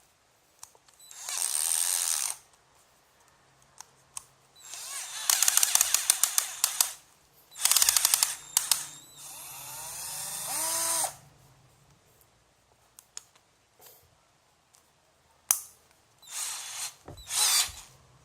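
12V cordless drill-driver triggered in several short bursts without load, its motor spinning up and stopping, with rapid clicking through some bursts. In one burst, near the middle, the pitch rises as it speeds up before it cuts off.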